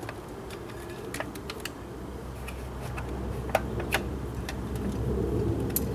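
Scattered light clicks and taps from hands working wiring and plastic parts on a motorcycle, over a steady low hum.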